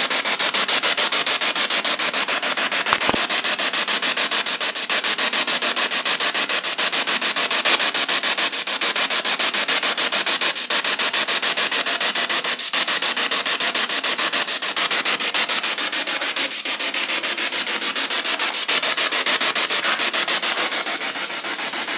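Spirit box sweeping the radio band, played through a small portable speaker: a steady hiss of radio static chopped into rapid, even pulses.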